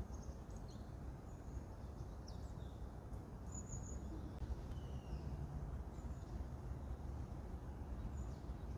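Outdoor ambience: a steady low rumble, with faint, brief high bird chirps scattered through it.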